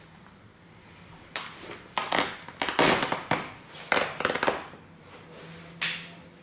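Nike Air Force 1 sneakers stomping and grinding on a torn plush dinosaur and its loose stuffing on a wooden floor. A quick run of crunching, scuffing bursts begins about a second in, with one more near the end.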